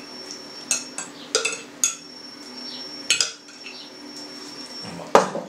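A metal spoon clinking against a glass jug as soaked rye bread is scooped out of kvass: a handful of separate clinks, the loudest near the end.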